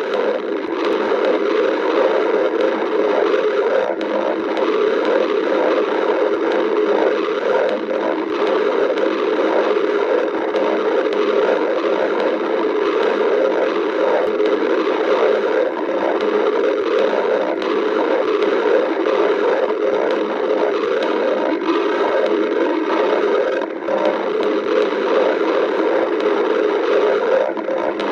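A hungry stomach growling, heard as a steady, continuous gurgling rumble with no distinct pauses.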